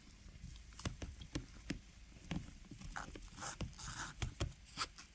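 Irregular light clicks and taps, about a dozen, with a couple of brief rustles about three to four seconds in: small handling noises.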